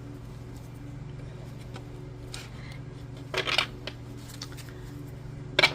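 Oracle cards being handled: a brief rustle of cards about three and a half seconds in and a sharp tap just before the end, over a low steady hum.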